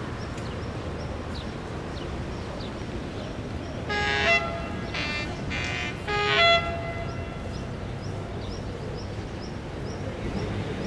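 Electric locomotive horn sounding a quick series of short blasts about four seconds in, the last the loudest, as the train gets ready to depart. A steady low rumble runs underneath.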